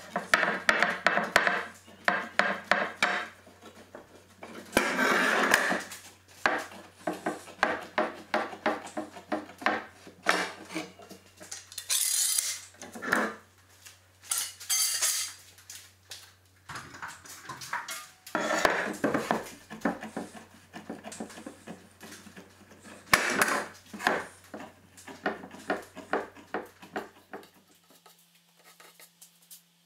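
Steel bar clamps being handled on a wooden frame and bench: repeated metallic clinks, clicks and clattering knocks as the clamps are set, tightened and lifted away, with louder bursts of clatter every few seconds.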